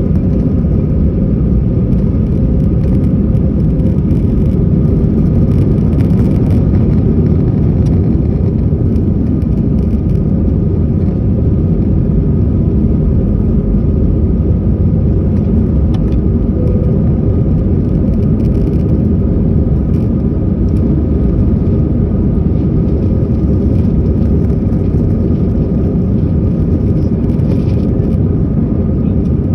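Airbus A320 jet engines at takeoff thrust, heard inside the cabin over the wing: a loud, steady roar with a steady droning tone over it, through the end of the takeoff roll and into the climb.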